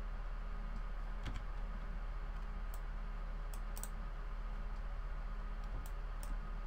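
A few scattered computer mouse and keyboard clicks, about six spread across several seconds, over a steady low hum.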